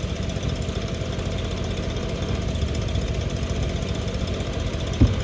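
Lawn mower engine running steadily with a fast, even pulse, and a single short knock near the end.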